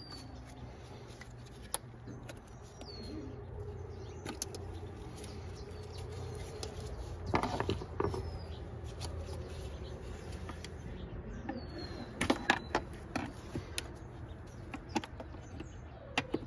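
Scattered sharp clicks and light rattles of hands working plastic wiring connectors and harness clips off an engine's intake manifold, loudest about halfway through and again around three quarters in. A bird calls a short, high, falling chirp every few seconds.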